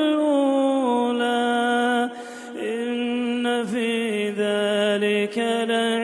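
A man's voice chanting Quran recitation in a slow, melodic style, holding long drawn-out notes, with a short pause for breath about two seconds in.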